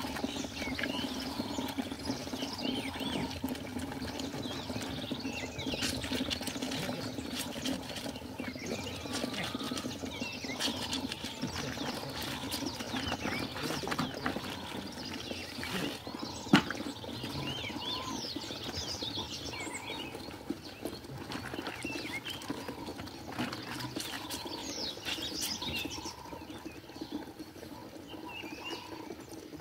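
Birds chirping and calling all through, over the sloshing and rubbing of clothes being hand-washed in a plastic basin of water, with one sharp knock about halfway through.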